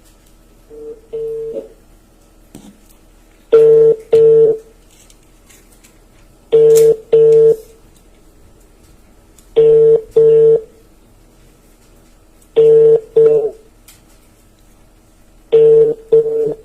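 Telephone ringback tone of an outgoing call, heard through a phone's loudspeaker: a double ring repeating about every three seconds, five times, with no answer.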